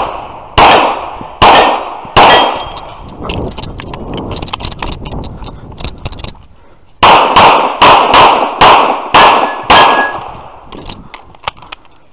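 Infinity pistol fired in a USPSA stage: three shots about a second apart, then a pause of small clicks and rattles, then a fast string of about seven shots. Some shots are followed by a brief metallic ring of steel targets being hit.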